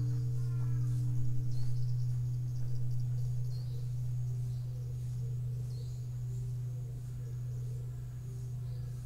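The deep hum of Chikurin-ji's bonshō, a large bronze Japanese temple bell, dying away after a strike. Its low drone lingers and slowly fades, while its higher overtones die out within the first few seconds. Faint high chirping runs over it.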